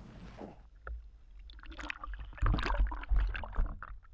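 Water sloshing and splashing close to the microphone, with a run of clicks and crackles and a loud low rumble in the second half.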